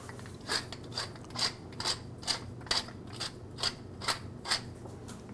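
Pepper mill being twisted to grind black pepper: about ten short crunchy grinding strokes, roughly two a second.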